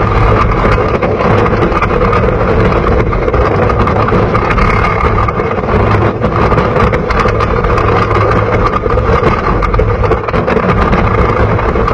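Mystic Timbers wooden roller coaster train running at speed along its wooden track: a loud, steady rumble and roar of the wheels on the rails, with constant rapid clattering.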